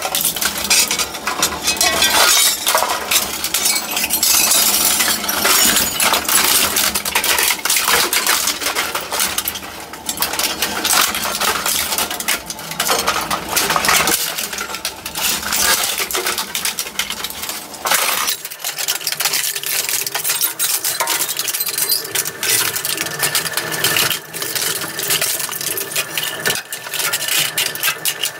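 Twin-shaft industrial shredder crushing a printer: dense cracking and snapping of plastic housing, with clinking of metal parts between the cutters. About 18 seconds in the deeper crunching drops away, leaving lighter clinking and rattling as the last pieces go through.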